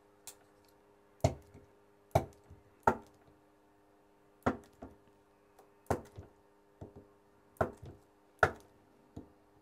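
Battery spot welder firing through two handheld probes, welding nickel strip onto 18650 cell terminals: a series of sharp snaps, about seven loud ones roughly a second apart, several followed by a fainter second snap, over a faint steady hum.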